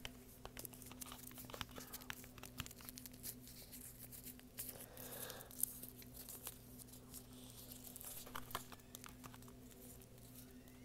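Crinkling, crackling and tapping from small objects handled by hand close to the microphone: many short sharp crackles and ticks, scattered without a steady rhythm, over a faint steady electrical hum.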